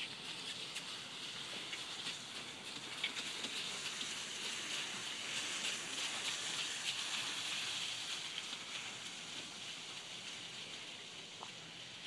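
Miniature horse's hooves and the wheels of its two-wheeled cart crunching over gravel, a steady hiss with faint ticks that swells as they pass close about halfway through, then fades.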